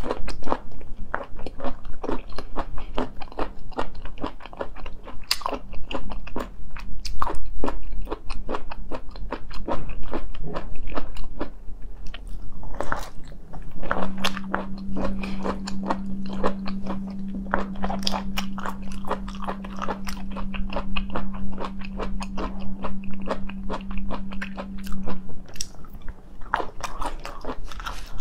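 Close-miked biting and chewing of food: dense, irregular wet clicks and crunches throughout. A steady low hum comes in about halfway through and stops a few seconds before the end.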